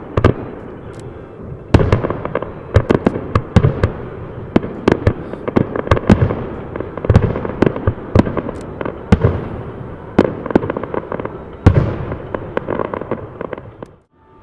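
Aerial fireworks shells bursting in quick succession: a dense run of sharp bangs and crackles, several a second, with bigger booms now and then. The sound cuts off abruptly near the end.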